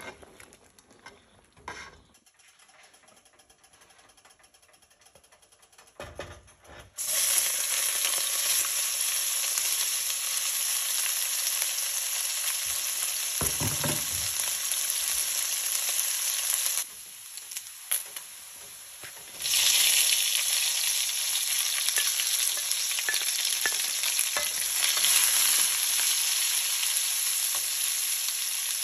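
Chopped sausage pieces sizzling in hot oil in a nonstick wok, later stir-fried with sliced onions under a wooden spatula. The first seven seconds are faint with a few light clicks; the loud sizzle starts suddenly, drops away for a couple of seconds past the middle, then comes back.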